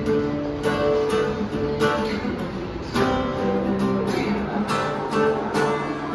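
Acoustic guitar being strummed, chords ringing between the strokes.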